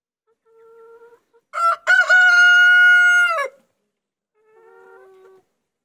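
A rooster crowing once, loud and close: a held call of about two seconds that drops away at the end. Two fainter, lower calls come before and after it.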